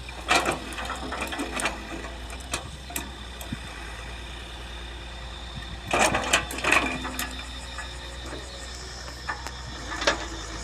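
Excavator running with a steady engine hum, broken by sharp metallic clanks: one near the start, a cluster about six to seven seconds in, and another near the end.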